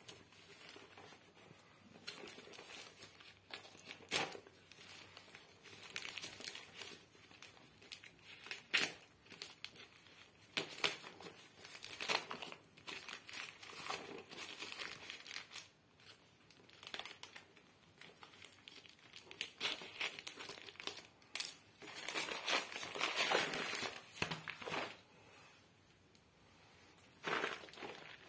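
Plastic and paper wrapping being cut and torn off a small cardboard box by hand, crinkling and tearing in irregular bursts with a few sharp snaps.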